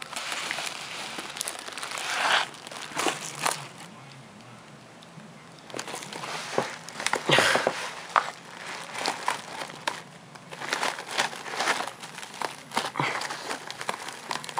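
Packaging being handled and pulled open by hand, crinkling and rustling in irregular spells, with a quieter stretch about four seconds in.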